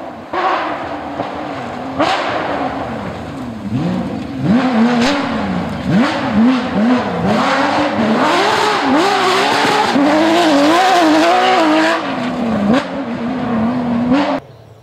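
Porsche 911 GT3 rally car's flat-six engine revving hard on a gravel stage, its pitch climbing and falling again and again through gear changes and lifts. It is loudest as the car passes close by, and the sound drops away abruptly near the end.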